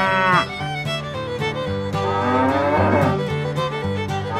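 A cow mooing: one call ends just after the start and a second long moo runs from about two seconds in to about three. Background music with sustained notes plays underneath.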